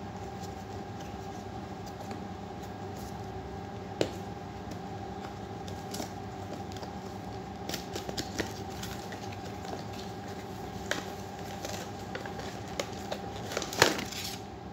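Cardboard microphone box being handled and opened: scattered taps, scrapes and flap rustles, busier in the second half, with the loudest clatter near the end as the box is tipped to slide its contents out. A steady low hum runs underneath.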